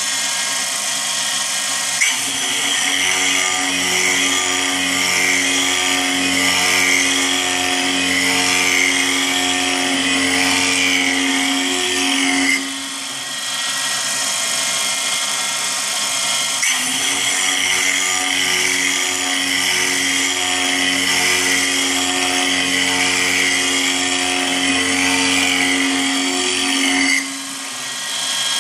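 CNC mill end mill cutting a circular pocket in aluminium plate by circular interpolation: a steady high cutting whine over the constant tones of the spindle and drives. It comes in two long passes of about ten seconds, each beginning with a sharp click, with a short quieter lull between them.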